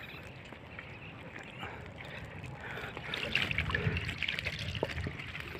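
Shallow water sloshing and splashing around hands, with a busier run of small splashes and trickles from about three seconds in, over a low steady rumble.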